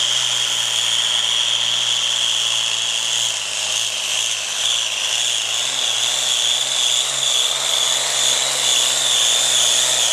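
Turbocharged diesel pulling tractor running flat out under load while dragging a weight-transfer sled, with a steady high whistle over the engine. The engine note begins to waver about a third of the way through as the sled bears down.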